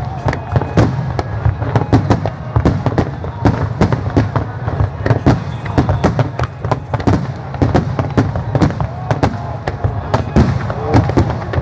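Fireworks display in full barrage: aerial shells bursting in quick succession, many sharp bangs a second over a continuous low rumble.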